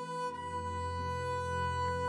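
Slow instrumental cello music with long held bowed notes. A deep low note enters about a third of a second in and is held.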